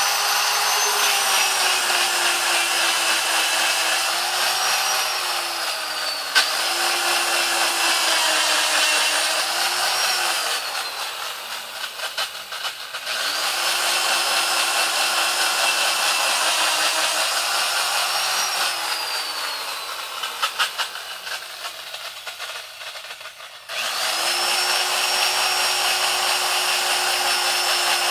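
Old electric drill running and boring into wood, its motor whine sagging in pitch as the bit bites and recovering as it eases off. It winds down twice, with crackling as it slows, and starts up again each time.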